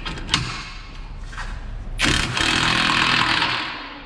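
A few sharp metal clinks, then about two seconds in a power wrench runs for about a second and a half, turning the screw of a ball joint press that pushes the new lower ball joint into the control arm.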